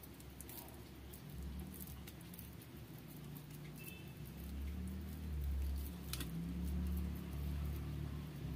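Soft patting and squishing of moist mashed beetroot-and-potato vegetable chop mixture being pressed into patties by hand, with a few faint clicks and a low rumble that grows louder in the second half.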